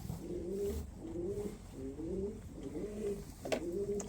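Pigeon cooing softly in the barn, a string of short low coos repeating about twice a second, with one sharp click about three and a half seconds in.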